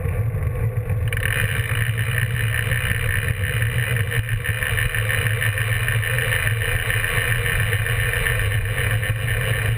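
Steady wind rush on a bike-mounted GoPro's microphone, with the road bike's tyre rolling on asphalt, from a road bike ridden at speed. A brighter hiss joins about a second in and carries on.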